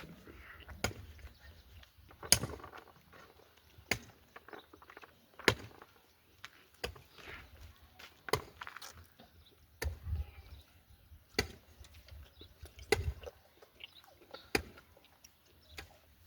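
Scattered sharp knocks and clatters of things being handled, about one every second or two, the loudest about two seconds in.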